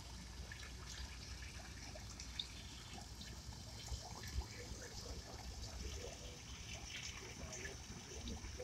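Koi pond water at the surface: faint trickling with small scattered splashes and drips as a crowd of koi jostle and gulp at the surface.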